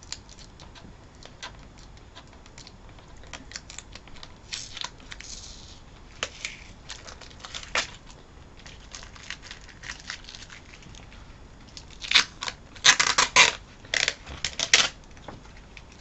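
Cardboard and paper packaging around rolled poster tubes being handled and torn open by hand: scattered crinkles and scrapes, then a run of louder tearing and rustling about twelve seconds in.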